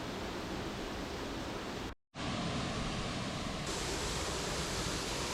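Steady rush of flowing water, as from a waterfall or fast stream, with a brief dropout about two seconds in and a brighter, hissier rush from about halfway through.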